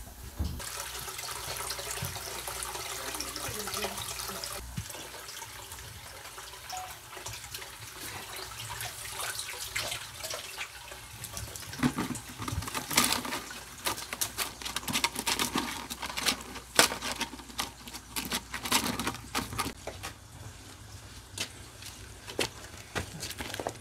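Water splashing and dripping as live shrimp are scooped with a wire hand net and tipped into a plastic basket. A run of sharp splashes and clicks comes in the middle stretch.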